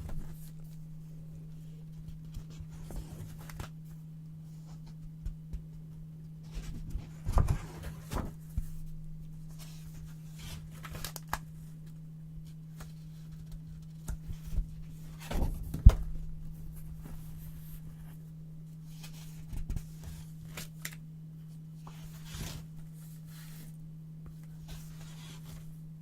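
Brown paper being handled and cut with scissors close to the microphone: scattered rustles, crinkles and crisp snips, the sharpest about two-thirds of the way through. A steady low hum runs underneath.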